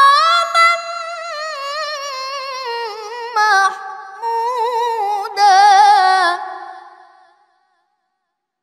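A boy's voice reciting the Quran in melodic tilawah style, drawing out the word "maqaman" in a long ornamented melisma whose pitch wavers and slowly steps down. It swells louder a few times, then fades out about seven seconds in.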